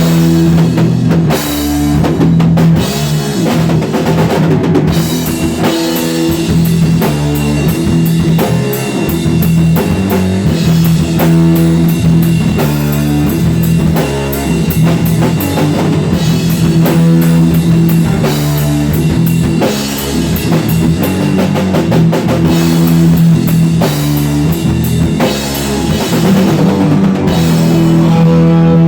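Rock band jam: a drum kit played steadily under held electric guitar notes. Near the end the drums stop and the guitar rings on alone.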